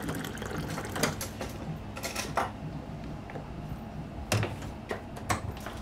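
Household objects being handled: about half a dozen knocks and clinks, with a longer clatter about two seconds in, over a low steady hum.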